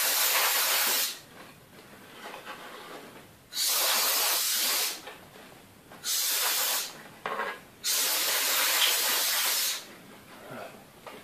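Can of compressed air blowing dust out of a computer's CPU heatsink and fan, in short hissing blasts of about a second or two each, four of them with a brief puff between, separated by quiet gaps.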